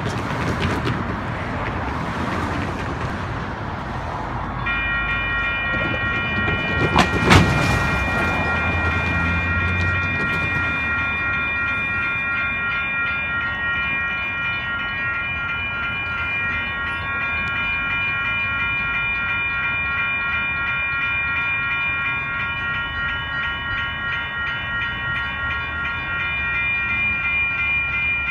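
Road traffic noise, then about five seconds in the grade crossing's electronic bells start ringing: several bells sounding together as a steady, multi-tone electronic ring that keeps going while the crossing stays activated. One sharp knock about seven seconds in is the loudest sound.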